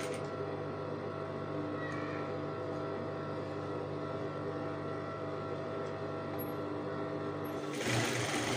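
Sewing machine's motor humming steadily while the fabric is turned at the needle, then stitching again in a louder run near the end, sewing a narrow folded hem around a trouser leg.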